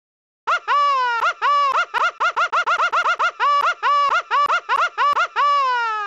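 A high-pitched, voice-like sound clip: a quick run of about twenty short pitched syllables, each one swooping up and falling back. It starts about half a second in, and the last syllable is longer and glides down in pitch.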